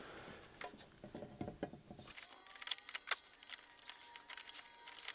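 Scattered light clicks and taps of hands fitting small parts, a fuel tank and hose, in place, much more frequent after about two seconds.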